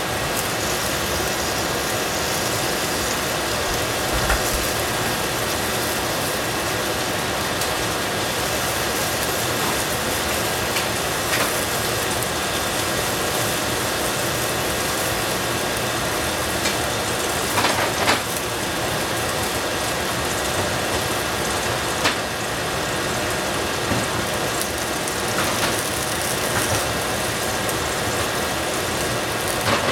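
Ground pork and onion sizzling steadily in a stainless steel pot over a gas flame, with a few sharp pops and crackles as the meat fries.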